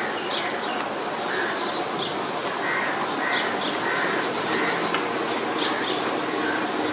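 Birds calling repeatedly over a steady background din.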